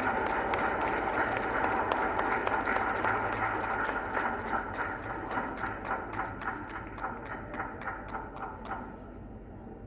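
Audience applauding. The clapping gradually thins out to a few separate claps and stops about nine seconds in.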